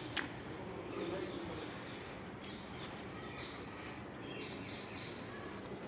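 Steady outdoor background noise with a few faint, brief bird chirps, and a single click just after the start.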